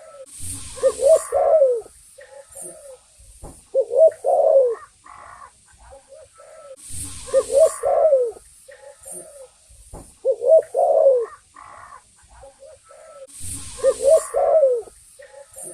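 Spotted dove (tekukur) cooing: its rolling three-part coo phrase, repeated about every three seconds. A brief hiss comes at the start of some phrases.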